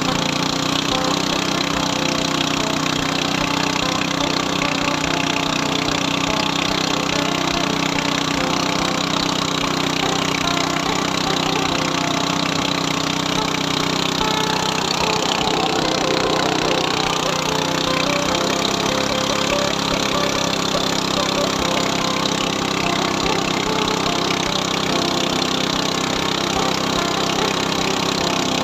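Small boat's motor running steadily, driving a narrow wooden longboat along a river; its note drops a little about two thirds of the way through.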